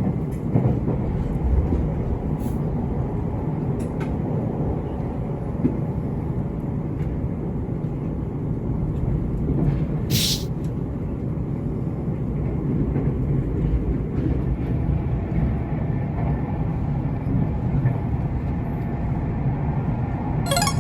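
Nankai electric train running, a steady low rumble of motors and wheels on rail, with a brief hiss about halfway through.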